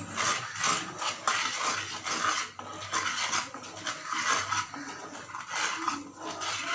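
A spoon stirring jaggery syrup in a kadai, scraping against the metal pan in repeated rasping strokes, about two a second, as the syrup cooks down.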